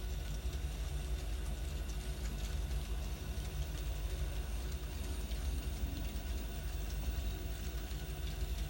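N scale model train running on the layout's track: a steady low hum with a few faint clicks.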